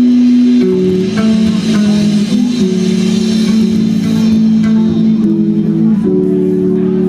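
Live band playing a baião, with held chords that change every second or so over plucked electric bass.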